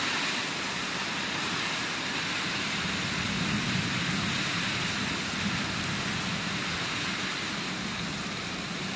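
Heavy rain pouring steadily onto trees and tall grass, an even hiss with no breaks.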